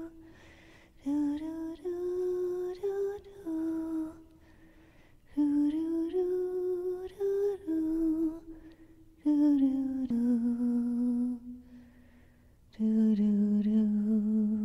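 A single voice singing a slow wordless melody in four drawn-out phrases with short pauses between; the last two phrases sit lower in pitch, the final note held.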